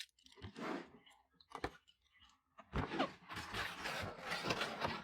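Cardboard box being opened and handled: a couple of sharp knocks, then a few seconds of cardboard scraping and rustling as the flaps and inner packaging are pulled open.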